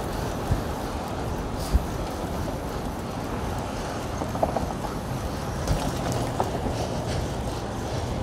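Wind on the microphone with road and traffic noise while riding a fixed-gear bike through city streets, with a couple of sharp knocks in the first two seconds and a steady low engine hum from nearby traffic joining about six seconds in.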